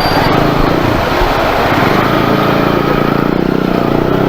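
Motorcycle engine running steadily while riding, under a constant rush of wind and road noise; the engine note stands out more clearly about halfway through.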